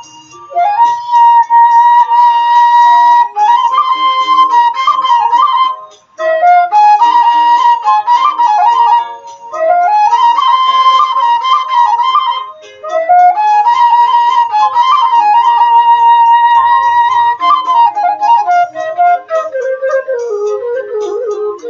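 Slow flute melody played in phrases a few seconds long, each sliding up to a held high note, with short breaks between phrases; near the end the melody sinks lower.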